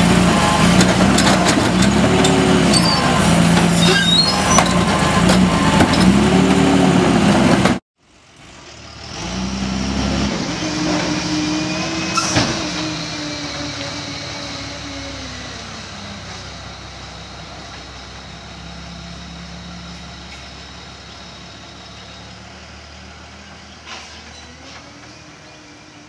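International/Bridgeport pup garbage truck running loudly while its cart tipper dumps a wheeled bin into the hopper, the engine revving up and back down twice, with clatter from the bin. After a sudden break the truck pulls away, a short air-brake hiss about twelve seconds in, its engine sound fading steadily as it drives off.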